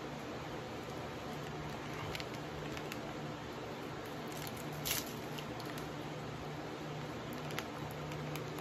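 Snack packaging being handled and opened by hand: soft rustling with a few brief clicks and crackles, the loudest about five seconds in, over a steady low hum.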